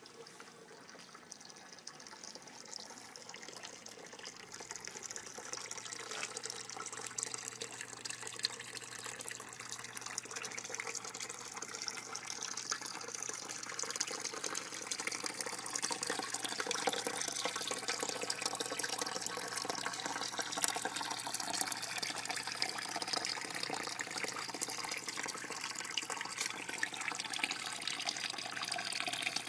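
A thin stream of water pouring from a pipe into a plastic-barrel plant filter, splashing and trickling steadily into the water. It grows louder over the first several seconds, then holds steady.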